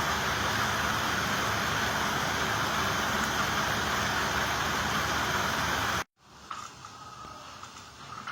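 Steady loud mechanical noise that cuts off abruptly about six seconds in, leaving a much quieter background with a few faint clicks.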